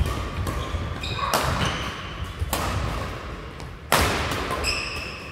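Badminton doubles rally: rackets striking the shuttlecock about four times, a second or so apart, with the hardest hit just before four seconds in, each hit echoing in the hall. Court shoes squeak on the floor between shots.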